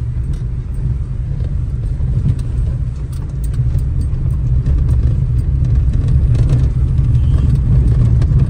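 Tata Punch compact SUV driving over a rough, unpaved gravel road, heard from inside the cabin: a steady low rumble of engine and tyres on the loose surface, with a few faint knocks. It grows louder about halfway through.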